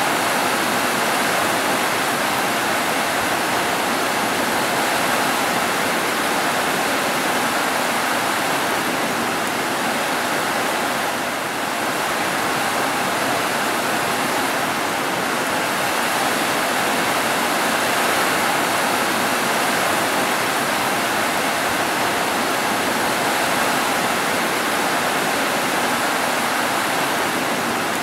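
Heavy rain falling steadily on roofs: a dense, even hiss that doesn't let up.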